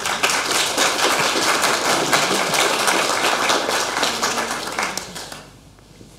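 Audience applauding, the dense clapping dying away about five and a half seconds in.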